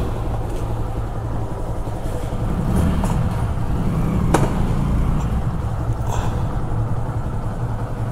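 Yamaha FZ16 motorcycle's single-cylinder engine running at low revs, a steady low rumble, with one sharp click about four seconds in.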